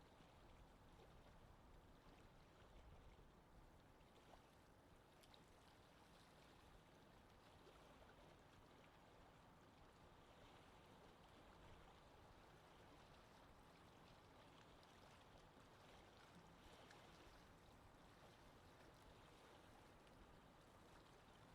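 Very faint, steady water ambience with a few light ticks.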